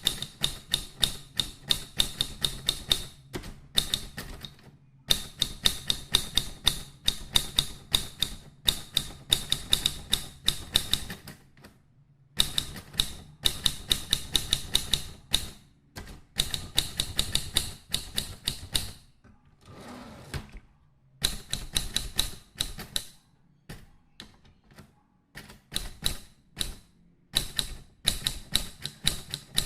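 Typewriter typing sound effect: rapid mechanical keystrokes clacking about five a second, in runs of a few seconds broken by short pauses.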